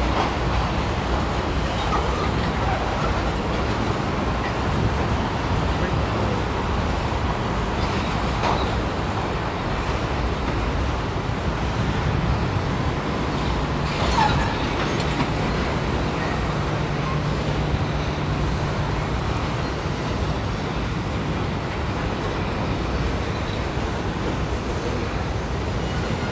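Freight cars rolling steadily over a steel railway trestle: a constant low rumble of wheels on rail, with a couple of brief sharp clanks.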